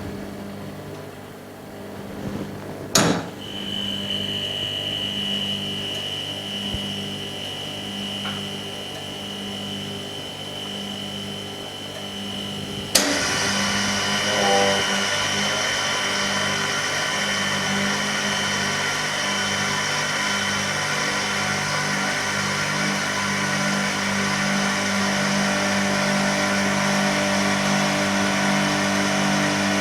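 An all-in-one OCA laminating and bubble-removing machine running through its cycle: a steady mechanical hum that pulses evenly, with a thin high tone. About 13 seconds in there is a sharp click, and a louder steady hiss joins in after it.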